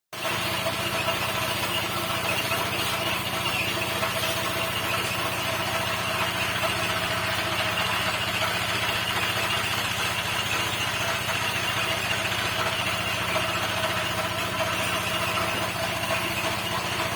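A motor or engine running steadily at a constant speed, cutting in suddenly at the start.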